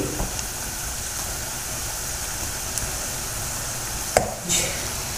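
Rice fritters deep-frying in hot oil, a steady sizzling hiss. About four seconds in there is a sharp knock and a brief scrape as the slotted metal spatula hits the pan while turning them.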